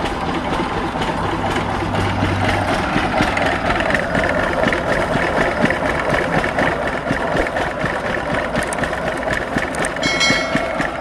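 Engine-driven sugarcane crusher running steadily with a dense clatter. A brief high-pitched tone sounds about ten seconds in.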